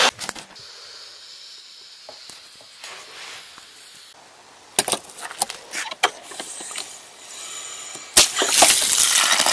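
A few light clicks and knocks, then a loud rush of water about eight seconds in as an outdoor wall tap is turned on and water runs through the garden hose.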